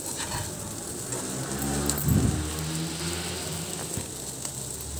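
Potatoes and onions frying in oil in a kadhai, stirred with a metal slotted spatula: a steady sizzle with light scrapes and clicks. A low droning hum comes in after about a second and is loudest about two seconds in.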